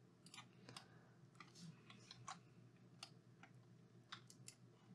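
Near silence broken by faint, irregular clicks of a computer mouse: button presses and scroll-wheel notches.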